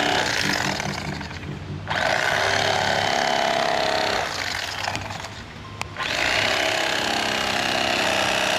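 Handheld power tool running in three spurts as it cuts seat foam, stopping briefly about two seconds in and again for over a second near the middle.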